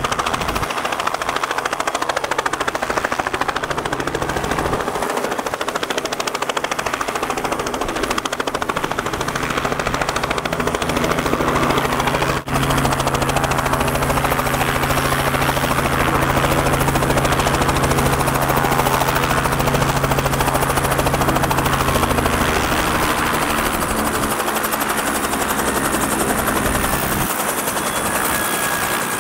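Robinson R44 Clipper II helicopter running close by: a fast, steady chop of the rotor blades over the drone of its six-cylinder piston engine. A low hum under the chop holds steady from about five seconds in and fades out a few seconds before the end.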